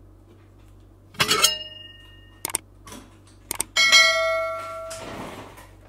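Subscribe-overlay sound effect: mouse clicks and a chime, ending in a notification bell ding about four seconds in that rings out and fades over about a second.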